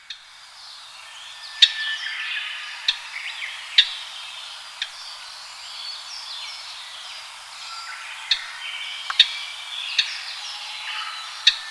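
Japanese grosbeaks calling, with sharp single chips and short warbled whistled phrases overlapping, as if from several birds.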